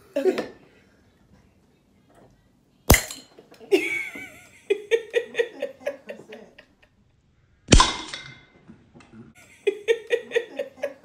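Two sharp knocks about five seconds apart: a plastic opener being struck down onto the marble seal of a Ramune-style soda bottle. Each is followed by bursts of laughter.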